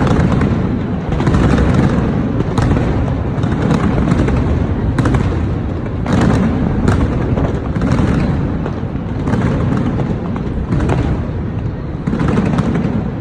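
Fireworks display: a continuous heavy rumble of bursts, with sharp bangs roughly every second.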